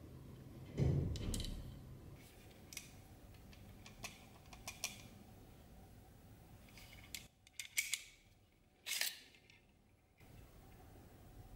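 Handling sounds from a dagger and its metal scabbard: a soft thump about a second in, scattered light clicks of the metal fittings, then a short metallic scrape about nine seconds in as the blade is drawn out of the scabbard.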